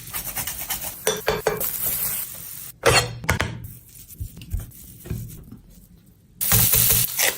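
Kitchen utensils and dishes clinking and knocking, several separate strikes, during cooking. Near the end a louder spell of hissing noise sets in.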